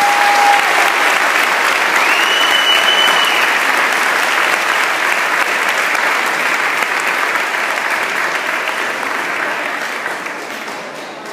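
Audience applauding steadily, easing off near the end. Two brief held high tones sound over it, one at the very start and a higher one about two seconds in.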